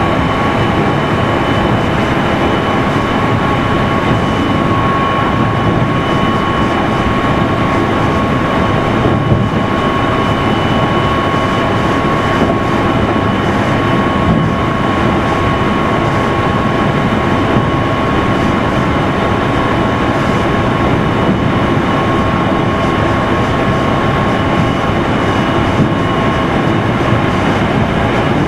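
Running noise of a Meitetsu 3100 series electric multiple unit, heard from inside motor car Mo 3212 at a steady speed: a constant rumble of wheels on rail with a thin, steady high tone, and now and then a light knock from the track.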